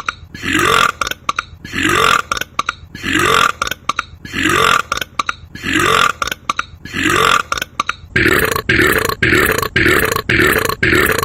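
A man's burps, repeated in an even rhythm about once every second and a half, each with a short rising pitch. From about eight seconds in, quick sharp clicks fall between them.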